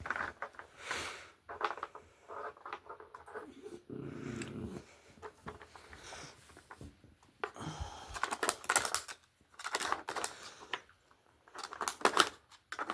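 Pet treat puzzle box being worked by a pet: irregular clicking and clattering as its pieces are knocked and shifted, in quick bursts with short pauses.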